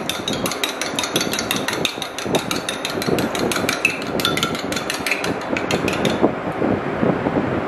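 Raw eggs being beaten with a metal fork in a ceramic bowl: rapid clicks of the fork against the bowl, about five or six a second. The clicking stops about six seconds in, leaving a softer stirring swish.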